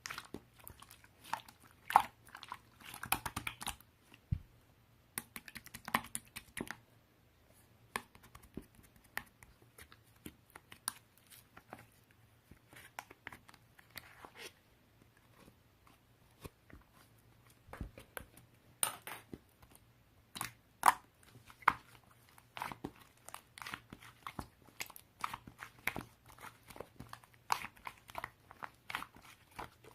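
Irregular crinkling, tearing and tapping handling noises, in scattered short clicks and crackles with small pauses between them.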